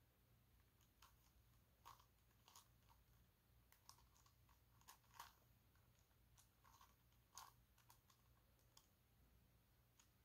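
Faint, irregular plastic clicks of a 5x5 dodecahedron twisty puzzle (a Gigaminx) as its faces are turned by hand, about ten scattered clicks.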